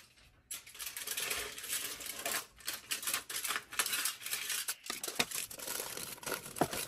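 Sheet of aluminium foil being handled and crumpled: a dense crackling rustle for about four seconds, then a few scattered crackles and taps.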